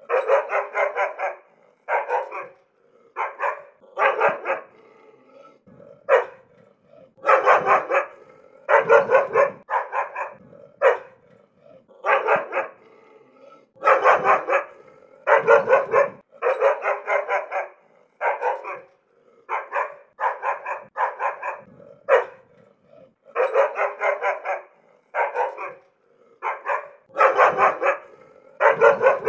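Angry dog barking in repeated runs of quick barks, with short pauses of about a second between runs.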